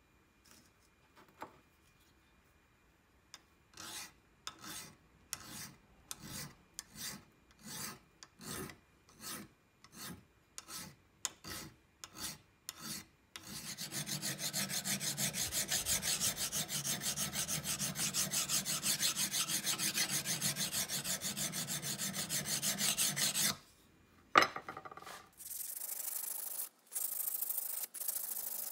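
Hand file rasping back and forth across the tip of a steel center punch held in a bench vise: separate strokes that gradually quicken, then about ten seconds of rapid, unbroken filing. A sharp click follows, and near the end sandpaper rubs on the steel with a finer, hissier scrape.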